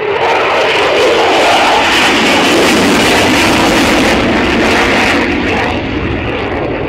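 Loud jet noise from a Eurofighter Typhoon's two EJ200 turbofan engines on a display pass. It grows stronger soon after the start and eases off about five and a half seconds in.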